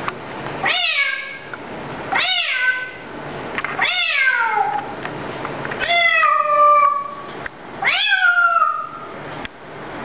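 African grey parrot mimicking a cat's meow, five meows in a row, each sliding up and then down in pitch.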